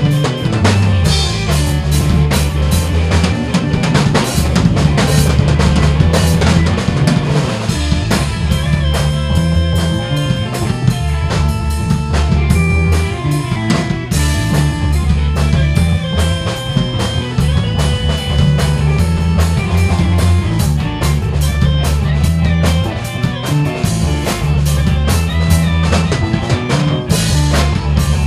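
Rock band playing: a busy drum kit with snare and bass drum over an electric bass line, with held keyboard chords from electric organ and piano.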